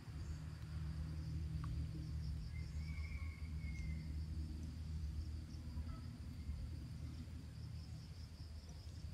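Insects chirring steadily in a high, faintly pulsing trill over a low, steady rumble. A short, faint whistle-like call comes about three seconds in.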